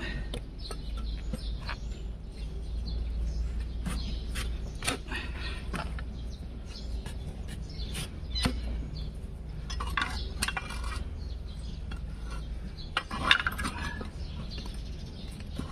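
Steel hoof-trimming blade shaving and scraping horn from a donkey's hoof: irregular short scrapes and clicks as the blade bites and slips. There is a sharper knock about 13 seconds in.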